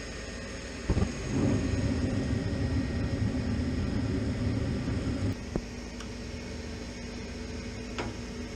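Gas furnace running steadily. About a second in a click is followed by a louder low rumble that lasts about four seconds and stops with another click, after which a steady low hum carries on.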